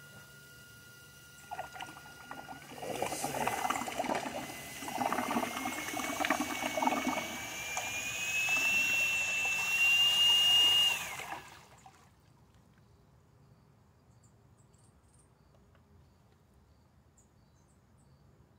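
Homemade trolling motor, a geared Porta-Band bandsaw motor running on 24 volts, whining with a pitch that steps up and keeps rising as it speeds up, while its 3D-printed prop churns and splashes the water in a plastic tub. Motor and splashing cut off suddenly about eleven seconds in.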